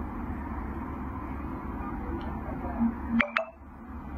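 Steady background hum, broken about three seconds in by a short low blip and then two quick, high electronic beeps, after which the background briefly drops away.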